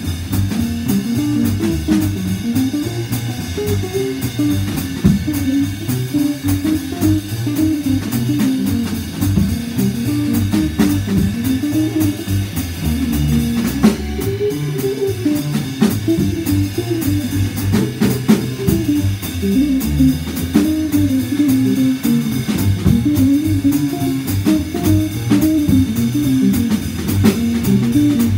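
Live bebop jazz from a trio: an archtop guitar playing a fast single-note line over an upright double bass and a drum kit keeping time.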